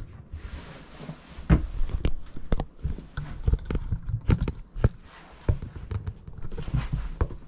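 Irregular clicks, knocks and low thumps of someone moving about inside a small hut, with footsteps and handling noise. The strongest knocks come about one and a half and two and a half seconds in.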